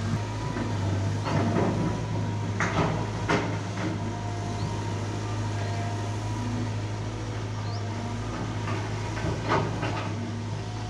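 Excavator's diesel engine running steadily under load, with a few sharp metallic clanks and knocks, the loudest about three seconds in and again near the end.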